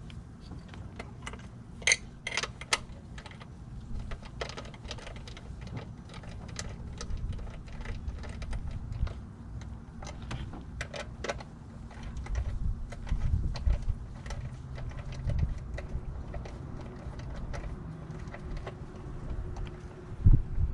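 Hand tools clicking and tapping on metal as the throttle body bolts are snugged down: a scatter of light ticks, with a few sharper knocks about two seconds in.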